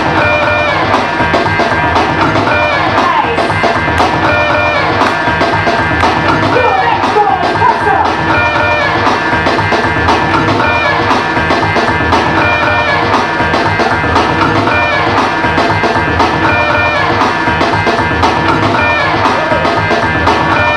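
Loud DJ music for breakdancing, with drums and a melodic figure that repeats about every two seconds.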